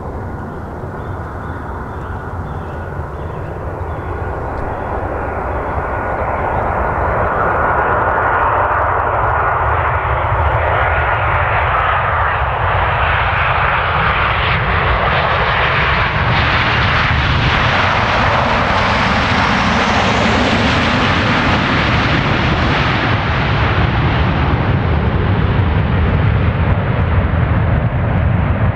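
Boeing 737-800 airliner's CFM56-7B jet engines on landing, a broad roar that grows louder as the plane closes in over the first several seconds. A thin high whine sits over the roar for about the first dozen seconds. The plane touches down about halfway through and rolls past, and a deeper rumble builds in the last few seconds.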